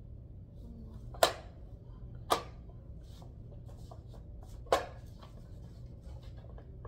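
Plastic parts of a swivel bassinet clicking and knocking as they are handled and fitted: three sharp, loud clicks, with lighter ticks between, over a low steady hum.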